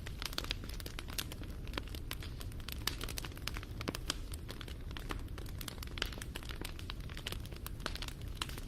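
Wood fire crackling: many irregular sharp pops and snaps over a steady low rumble of the burning.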